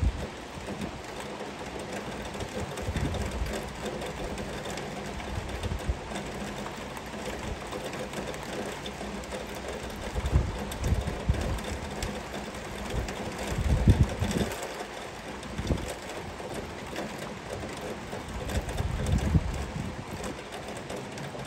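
Heavy rain falling steadily, an even hiss, with several low rumbles swelling and fading, the strongest about two-thirds of the way through.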